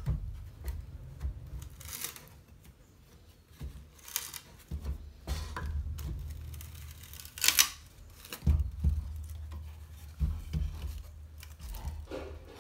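Hand disassembly of a tablet-laptop: small clicks and knocks of tools and parts being handled, with three short scraping or tearing noises, the loudest near the middle.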